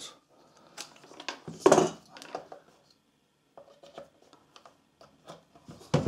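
Small clicks, knocks and rubbing as test leads and a plastic-cased meter are handled and set up on a wooden bench, with one louder knock a little under two seconds in.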